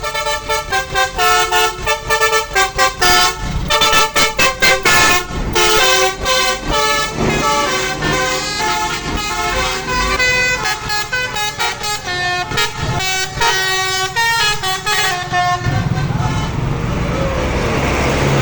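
Bus's Basuri telolet horn playing a quick melody, its notes stepping rapidly up and down, for about fifteen seconds. Near the end the tune stops and the bus engine and road noise take over.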